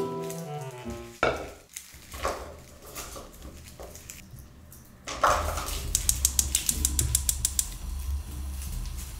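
Small vegetables rattling and scraping in a frying pan. About five seconds in there is a swoosh, then a rapid run of clicks, about seven a second, over a low hum.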